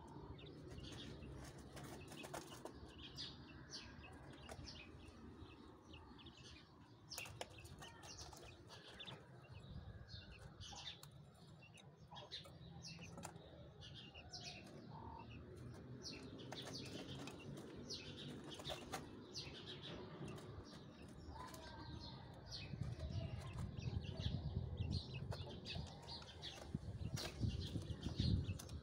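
Caged quails moving about and calling: many short, soft chirps and scratchy taps over a low rumble. The rumble grows louder in the last several seconds.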